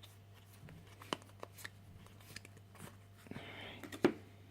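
Magic: The Gathering trading cards being handled and slid apart: scattered soft clicks and ticks, a brief rustle a little after three seconds, and a sharper click about four seconds in, over a faint steady hum.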